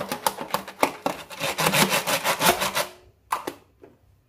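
An oil brush stroked rapidly back and forth inside a disposable aluminium foil loaf pan, a quick run of rubbing, rasping strokes against the foil. The strokes stop about three seconds in, followed by a few light clicks.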